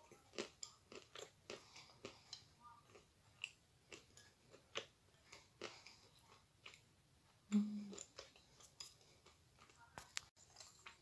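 Close-up chewing of a bite of Astana Ideal edible clay, with short crisp crunches about twice a second. A brief low hum comes about two-thirds of the way through.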